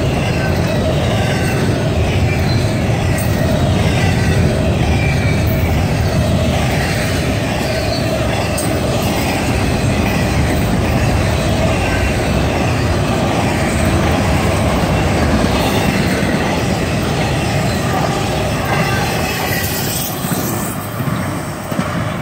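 A train rolling past close by: a steady heavy rumble of steel wheels on the rails, with high wheel-squeal tones gliding above it and the clickety-clack of rail joints. It begins to fade in the last couple of seconds as the train moves on.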